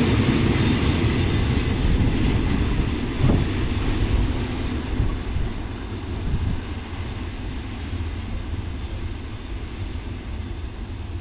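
A freight train's wagons rolling along the rails, a steady rumble and hiss that slowly fades as the train moves away, with a single sharp click about three seconds in.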